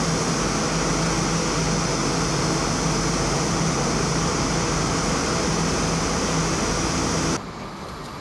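Steady, loud mechanical drone with a low hum and a strong hiss over it, dropping suddenly to a quieter background drone about seven seconds in.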